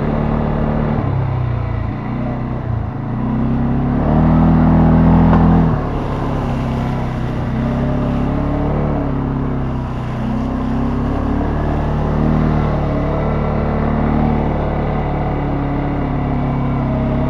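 CFMoto ATV engine running under way, revving up and easing off again and again, loudest about four to six seconds in.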